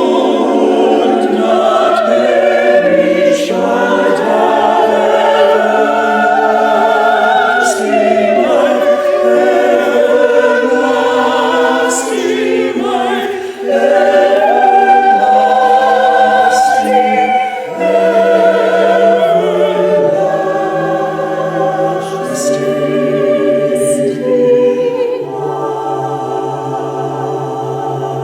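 Choir singing sustained chords in several voice parts, with a brief break about halfway through and a softer passage near the end.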